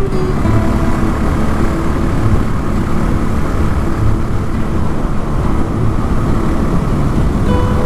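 Honda XR650L single-cylinder motorcycle engine running steadily under a heavy, even low rumble.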